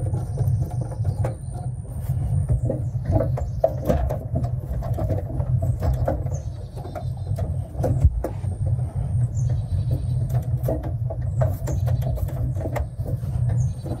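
Steady low rumble with scattered light clicks and taps of a screwdriver working on a metal electrical panel cover.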